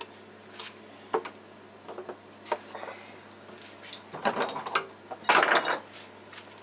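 Scattered clicks and metallic clinks of small hand tools and parts being handled on a workbench, with a denser clatter about four to six seconds in, loudest near the end.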